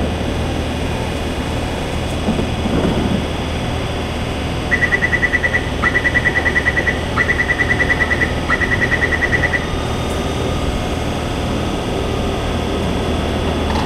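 Rapid high-pitched door-closing warning beeps of a Taipei Metro train, four bursts of about a second each, over the steady hum of the C341 train standing at the platform.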